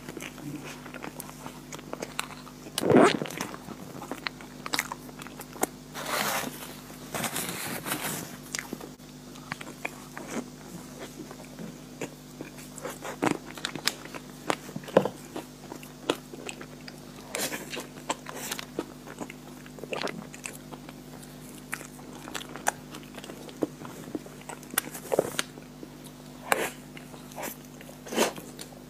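Close-up mouth sounds of a person eating chocolate-cream layer cake: biting and chewing with many irregular wet clicks, louder for a moment about three seconds in. A steady low hum runs underneath.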